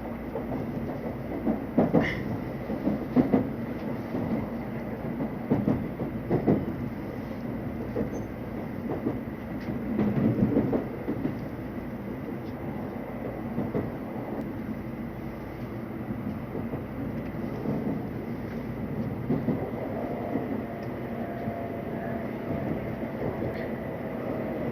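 Shinkansen car interior: steady running rumble with irregular knocks of the wheels over rail joints and points. About twenty seconds in, a whine from the train's electric drive starts and slowly falls in pitch.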